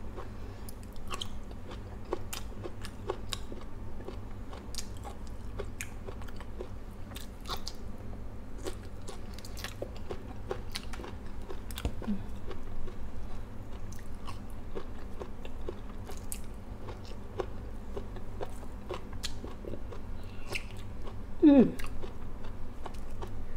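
A person biting and chewing boiled okra with a steady run of short wet mouth clicks and crunches. A brief voiced sound comes near the end.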